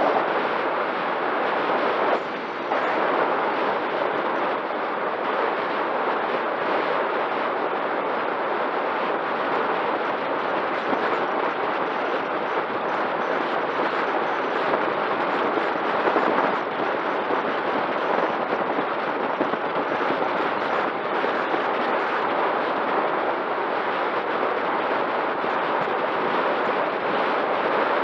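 Steady rush of wind and tyre noise on a camera mounted on a bicycle descending a paved mountain road at speed, with a faint steady whistle under it.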